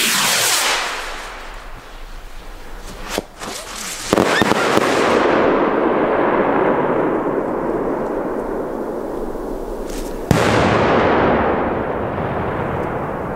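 Fireworks going off: a sharp bang at the start, then two more sharp bangs about four and ten seconds in, each trailing off in several seconds of loud, slowly fading noise.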